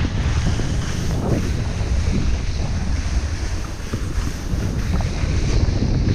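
Loud wind buffeting the microphone of a camera carried by a rider moving fast down a ski slope, over a steady hiss of a snowboard sliding on snow.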